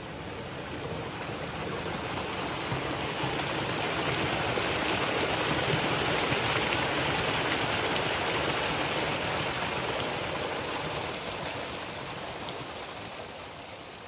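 Running water of a forest stream rushing steadily, swelling to its loudest midway and fading again toward the end.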